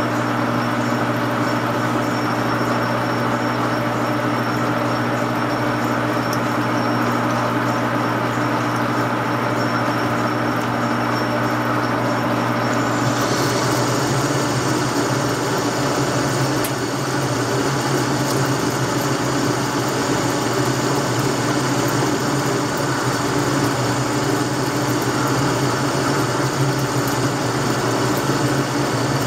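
Metal lathe running steadily with a steady hum as the tool takes a turning cut on the spinning workpiece. About 13 s in, a cut more than double the depth starts at the same speed and feed, and the sound grows noisier, with more high-pitched sound.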